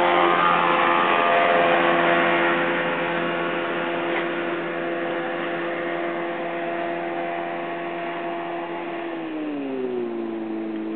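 1975 Hewescraft jet boat's engine and jet drive running at a steady pitch, then dropping in pitch near the end as the throttle is eased off.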